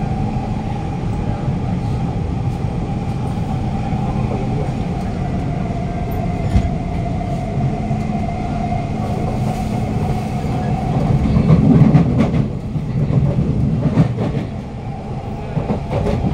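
Siemens C651 metro train running at speed, heard from inside a motor car: steady rumble of the wheels on the rails under a steady whine from the traction motors. Two sharp clicks, about six and fourteen seconds in, and the rumble grows louder around eleven seconds in before easing off.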